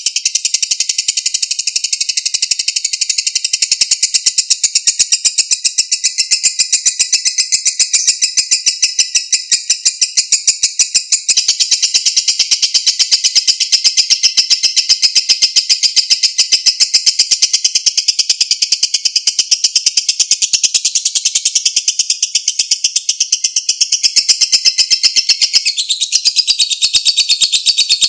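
Lovebird 'ngekek': a long unbroken chattering trill of rapid, shrill, evenly repeated notes, held without a pause.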